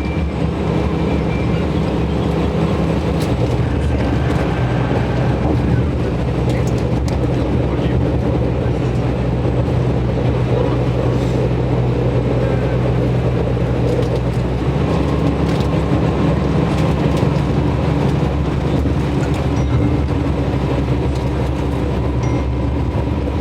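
Tour bus engine and road noise heard from inside the cabin: a steady drone with the engine note shifting about two-thirds of the way through.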